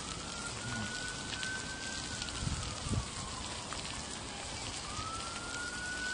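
Pork belly and mushrooms sizzling on a grill pan: a steady crackle with small pops. Behind it a distant siren wails, rising, holding and falling, then rising again near the end.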